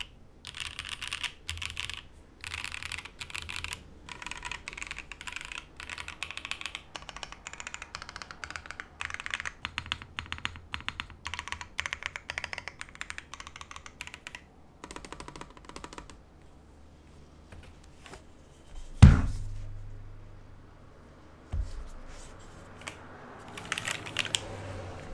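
Fast typing on a Musashi TKL custom mechanical keyboard with lubed Vertex V1 switches in an aluminium plate, a steady run of keystrokes that stops about 14 seconds in after a few last presses. Then a single loud thump, a smaller one a couple of seconds later, and handling noise near the end as the keyboard is lifted and turned over.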